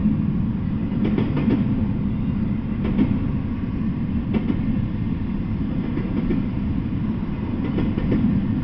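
Freight train of double-stacked container cars rolling past: a steady low rumble of wheels on rail, broken by several irregular sharp clacks.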